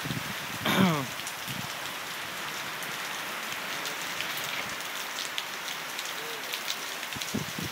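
Heavy thunderstorm rain pouring steadily, with scattered drops ticking close by. About a second in, a person gives a short whoop that falls in pitch.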